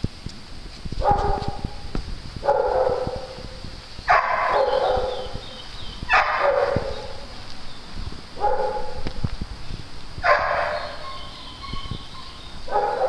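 A dog barking over and over, seven barks spaced about two seconds apart.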